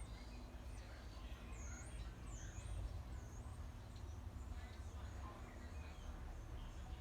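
Small birds chirping, with a run of quick high, dipping chirps about two to three seconds in and fainter chirps scattered around them, over a steady low background rumble.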